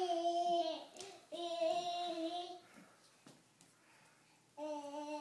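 A toddler's voice making long drawn-out vowel sounds, each held at a fairly steady pitch: two in a row in the first few seconds, then a pause, and another starting near the end.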